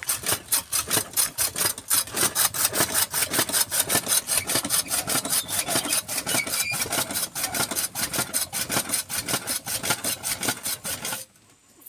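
Hand-cranked flywheel chaff cutter chopping cassava leaves: an even, rapid run of blade strokes, about four a second, that stops abruptly near the end.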